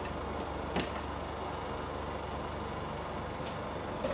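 Steady mechanical hum and hiss of a claw machine in an arcade, with a sharp click a little under a second in and another near the end.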